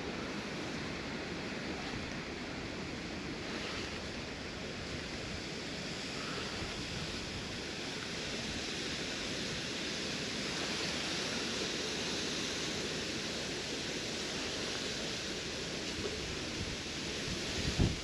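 A steady, even rushing outdoor noise of wind and water, with no distinct events. It swells slightly about halfway through.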